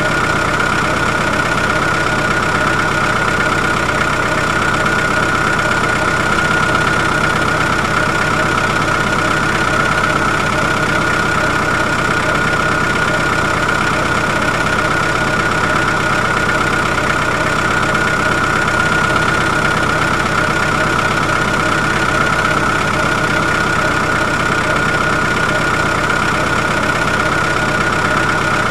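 Heavy diesel machinery, an excavator and dump trucks, running steadily: an even engine drone with a constant high whine over it.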